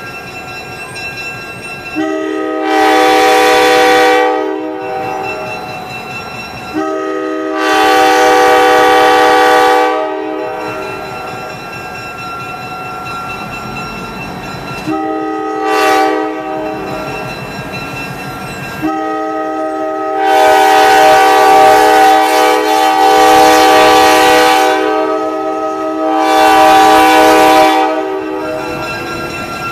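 Nathan K5LA five-chime air horn on an EMD GP9 diesel locomotive sounding the grade-crossing signal: two long blasts, a short one, then a final long blast that swells twice before it ends.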